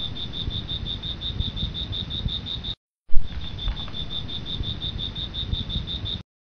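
Crickets chirping: a steady run of high, evenly pulsed chirps, several a second, over a low rumbling hiss. It breaks off briefly about three seconds in, resumes, and stops suddenly near the end.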